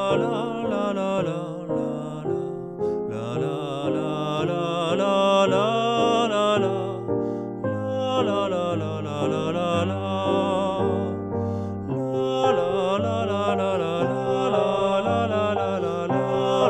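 A voice singing a flowing melody on the syllable "la" over instrumental accompaniment, as one part of a two-voice canon.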